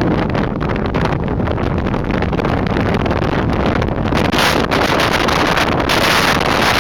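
Strong storm wind buffeting the microphone over the steady rush of heavy surf. The hiss turns brighter and louder about four seconds in.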